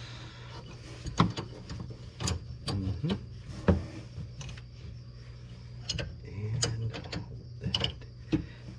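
A hand wrench clicking and clinking against metal in irregular sharp strikes as the A/C hose line fittings are tightened, over a steady low hum.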